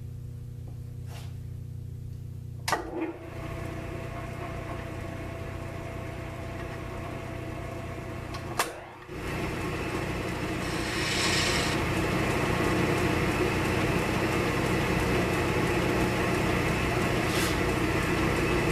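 1942 South Bend lathe running with a steady motor and drive hum. A sharp click comes about three seconds in. After a brief break near nine seconds it runs louder, with a short higher hiss around eleven seconds in.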